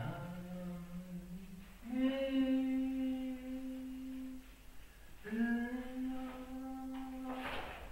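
A single voice humming a slow, wordless tune in long held notes, stepping up in pitch after the first note. A short noisy rush comes just before the end.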